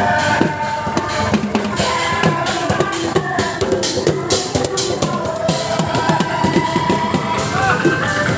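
Music with a steady drum-kit beat of bass drum and snare under pitched instrument lines.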